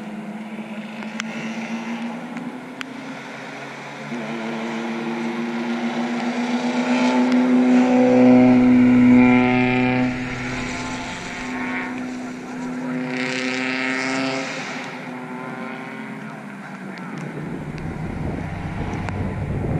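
Race car engines of passing cars, the pitch stepping up with gear changes. The sound swells to its loudest about eight to ten seconds in, with a second swell about thirteen to fifteen seconds in. Each swell carries a hiss that fits tyres on a wet track.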